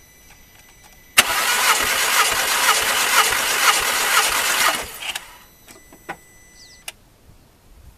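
Starter motor cranking a VW Golf Mk4's 2.0-litre four-cylinder engine without it firing, ignition and fuel pump disabled for a dry compression test. An even chugging of about three compression strokes a second starts suddenly about a second in and stops short after about three and a half seconds.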